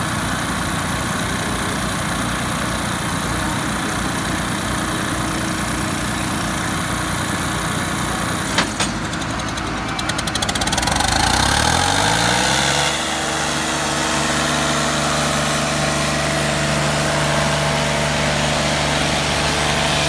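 Diesel tractor engines working hard under load as two chained tractors pull against each other. A single sharp knock comes at about eight and a half seconds, and from about eleven seconds an engine revs up and then holds at a steady higher speed.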